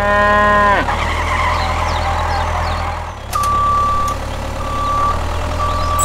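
The tail of a cow's moo, ending with a falling pitch about a second in. From about three seconds in come three steady beeps of a reversing alarm, the first one longer. A steady low engine hum runs underneath.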